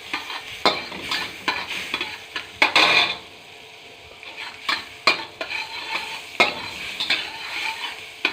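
Garlic sizzling in melted butter in a hot wok while it is stirred. The utensil scrapes and clicks against the wok at irregular intervals, with a louder stretch of sizzling and stirring about three seconds in.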